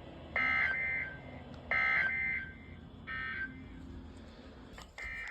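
NOAA Weather Radio's digital SAME/EAS data bursts: three short buzzy bursts of two alternating high tones, a little over a second apart, with a fourth starting near the end. These coded bursts mark an emergency alert message, here a severe thunderstorm warning being sent.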